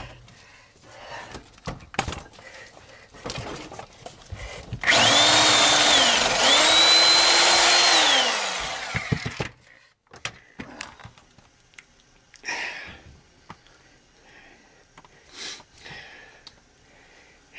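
A handheld power tool runs for about a second, dips briefly, then runs again for about two seconds before winding down, a steady whine over a harsh noise. Scattered knocks and clicks sound around it.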